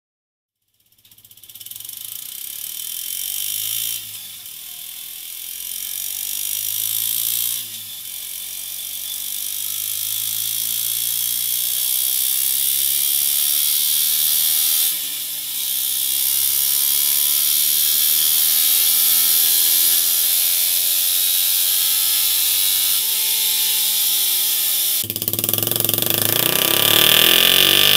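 Suzuki GSX-R 125's single-cylinder engine through its stock exhaust, revving up through the gears: the pitch climbs, drops sharply at each upshift (about 4, 7 and 15 seconds in) and climbs again. Near the end it cuts to the same engine with a MIVV MK3 slip-on exhaust, which is louder and brighter.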